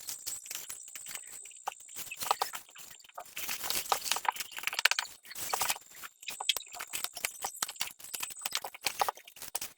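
Packaging being handled and opened by hand: irregular rustling, crinkling and clicking.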